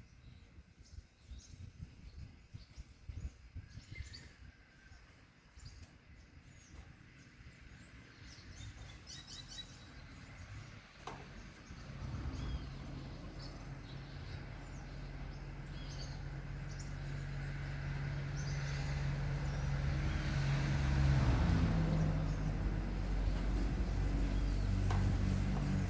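Gusty wind buffeting the microphone with a few bird chirps. From about halfway, a motor vehicle's engine hum comes in and grows steadily louder toward the end.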